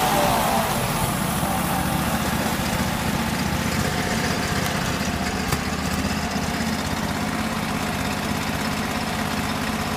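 Norwood HD36 sawmill's engine running steadily at idle, with one short tick about five and a half seconds in.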